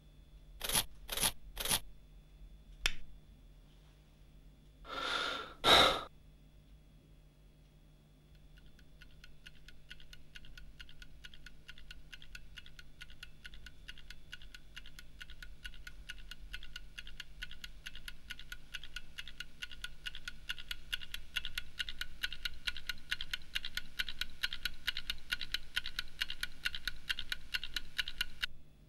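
A few short sharp sounds, then a fast, even run of clicks, many a second, that grows steadily louder for about twenty seconds and cuts off suddenly.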